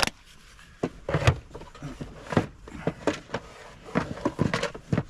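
Tools and plastic storage cases being handled on van racking: irregular clicks, knocks and rattles, with a sharp click at the very start.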